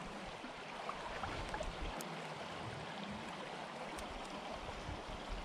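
Shallow river current flowing past, a steady rushing of water.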